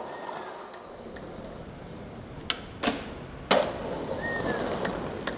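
Skateboard wheels rolling over street paving, with three sharp clacks of the board about two and a half, three and three and a half seconds in, the last the loudest.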